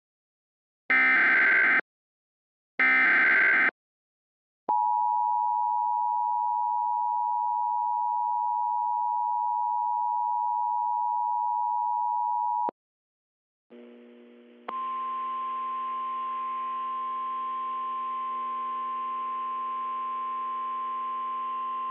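Emergency Alert System tones. Two short bursts of the SAME digital header data come first, then the two-tone attention signal holds steady for about eight seconds and cuts off. After about a second of silence a low hum with faint static comes in, and a second later a single steady alert tone starts over it and holds.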